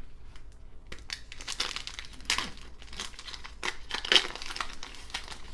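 Foil wrapper of a baseball card pack crinkling in a run of short crackles as it is handled and opened, loudest a couple of seconds in and again near the end.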